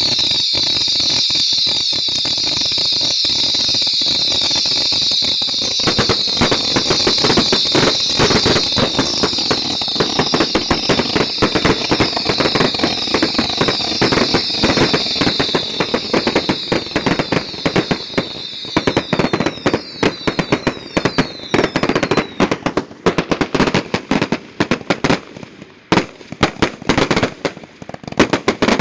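Ground fountain fireworks spraying sparks: a steady high hiss laced with falling whistles. About six seconds in, dense crackling joins it. The hiss dies away around twenty seconds in, and the crackling thins into separate sharp pops near the end.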